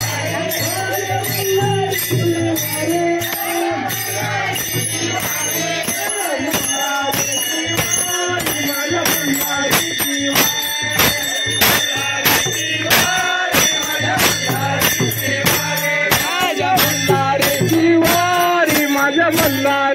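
Devotional group singing, a bhajan, over jingling percussion that keeps a steady beat.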